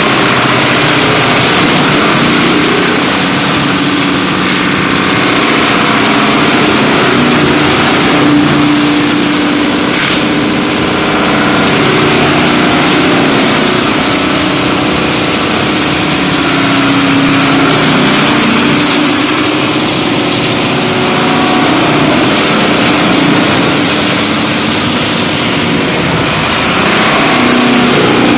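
FD1400-700 industrial wood chipper running and chipping lumber and timber: a loud, continuous machine drone with a dense grinding noise over it, swelling and easing slowly several times as wood goes through.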